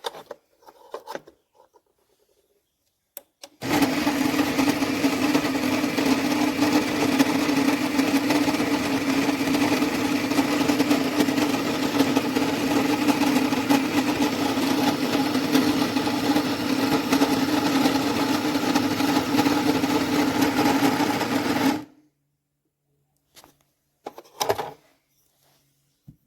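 Electric burr coffee grinder, the KitchenAid KCG8433BM, grinding beans: its motor and burrs run with a steady hum for about eighteen seconds, starting about four seconds in and stopping abruptly. A few light clicks and taps come before and after it.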